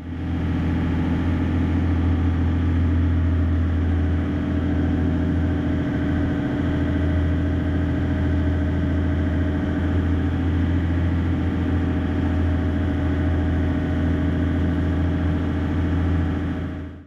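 Sport-fishing boat's engine running steadily under way, a deep even drone with a constant hum. The sound cuts in abruptly and cuts off abruptly at the end.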